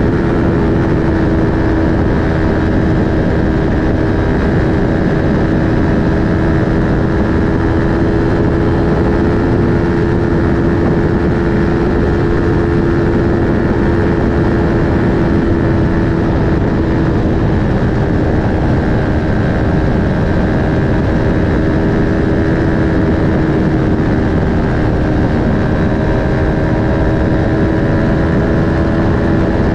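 Aprilia Tuono V4 1100 RR's V4 engine with an Akrapovic slip-on exhaust pulling at steady, sustained revs while cruising at speed, over a constant rush of noise.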